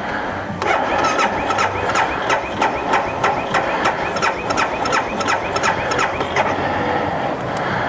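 The single-cylinder engine of a 2012 BMW G 650 GS Sertao is cranked by its electric starter for about six seconds: an even beat of about four compression strokes a second that never catches. This is the motorcycle's recurring no-start fault in cold weather.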